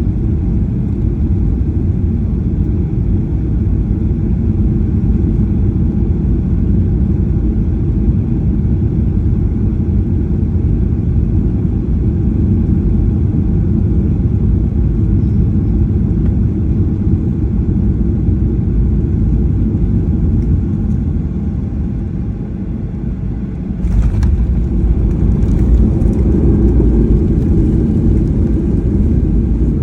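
Cabin noise of a Boeing 737-800 airliner landing: a steady rumble of its CFM56 jet engines and the airflow. About 24 seconds in there is a sudden jolt, and the rumble jumps to a louder, harsher roar.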